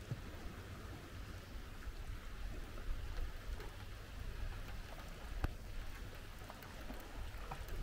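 Rain falling, a faint steady hiss with a few separate drops ticking.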